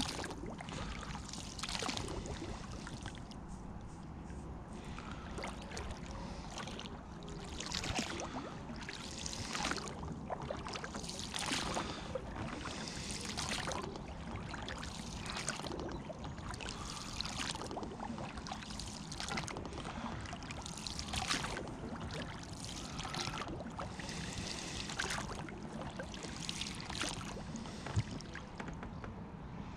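Oars of an inflatable rowing boat dipping and pulling through calm water, a splash and drip with each stroke, about one stroke every two seconds.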